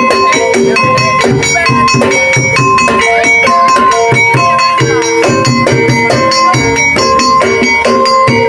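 Banyumasan gending music for an ebeg (kuda lumping) hobby-horse dance, loud and unbroken, with a melody of clear stepped notes over a quick, steady percussion beat.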